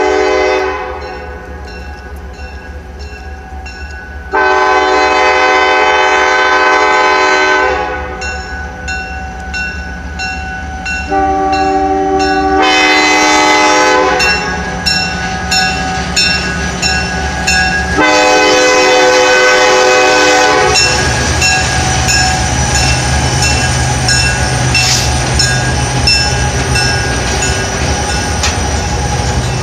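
Diesel locomotive air horn on the Conway Scenic Railroad Notch Train sounding four long chord blasts as the train approaches. After that the locomotive's engine runs with a steady low hum, and the train rumbles loudly as it crosses the steel truss bridge.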